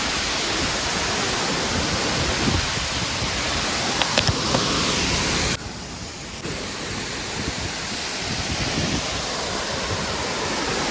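Waterfall: a steady, loud rush of falling water. A few sharp clicks come about four seconds in. About halfway the sound drops suddenly and quieter, then slowly builds back up.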